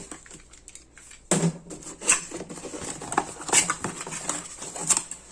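Hands unpacking a tool from a cardboard box: irregular clicks, light knocks and rustling of packaging, with a louder knock about a second and a half in.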